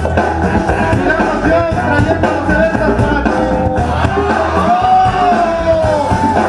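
Loud music with a sung vocal line.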